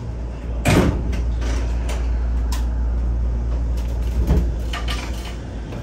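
Shonan Monorail 5000-series suspended monorail car running, heard from the front of the train: a steady low rumble, with a loud knock just under a second in and another about four and a half seconds in.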